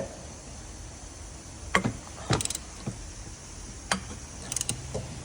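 Hand tools working a tight bolt: a socket ratchet clicking and metal tools clinking in short, separate bursts.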